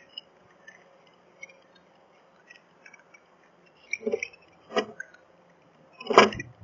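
A bird pecking at seed on a camera bird feeder close to its built-in microphone: three sharp knocks in the second half, the last the loudest, with faint chirps of other birds in the background.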